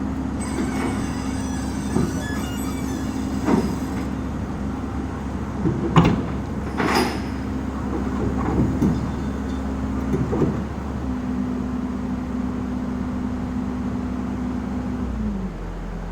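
Komatsu excavator's diesel engine running at steady revs, with several loud metal clanks and a squeal as the machine moves. The engine speed drops near the end.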